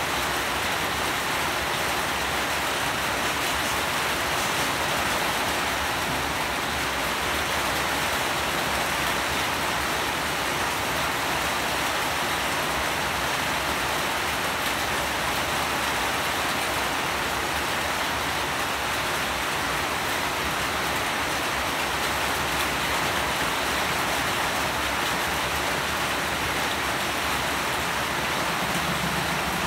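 Steady rain falling, an even unbroken hiss of many drops that neither builds nor eases.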